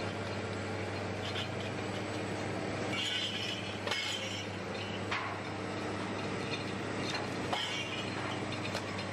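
Cable logging yarder's engine running steadily with a low hum while a log is hauled up the slope on the cable, with a few sharp metallic clinks and knocks.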